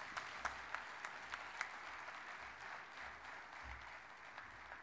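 Audience applauding, a dense patter of claps that slowly fades toward the end.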